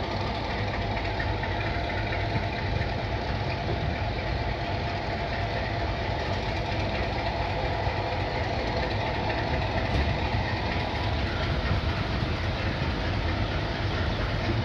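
Train running: a steady, unbroken rumble with a low engine hum.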